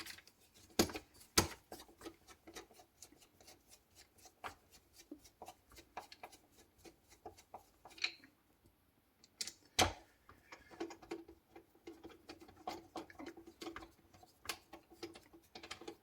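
Scattered light clicks and taps of a screwdriver, screws and metal handle parts while a replacement door handle is screwed onto the door, with a few sharper knocks about a second in and near the middle.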